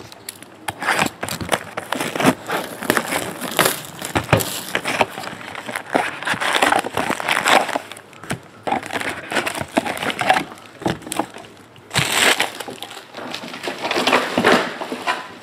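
Trading-card pack wrappers being torn open and crinkled, with cards being handled, in irregular rustling bursts and sharp clicks.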